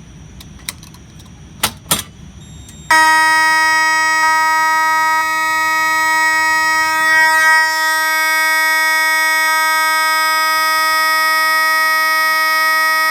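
A few sharp clicks as the Thorn B5 dual-action pull station is lifted and pulled. About three seconds in, an FCI HP-B4 mechanical fire alarm horn comes on and sounds continuously, loud and at one steady pitch.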